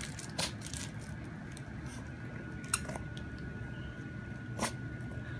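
Small dog chewing and biting a plush toy, with a few scattered sharp clicks and squishes from its teeth working the toy.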